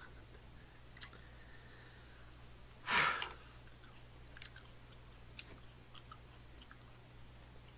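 A man chewing a mouthful of tteokbokki (chewy rice cakes), with soft mouth clicks and one short breathy sound about three seconds in.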